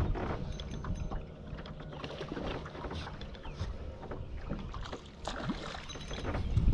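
Wind rumble and water noise aboard a fishing boat, with scattered small clicks and knocks as a spinning rod and reel are worked and reeled in.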